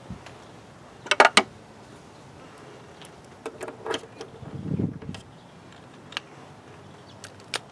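Hand work at a plastic air filter housing: small clicks and clinks of screws and a cordless driver being handled, with a quick cluster of sharp clicks about a second in and a duller knock around five seconds.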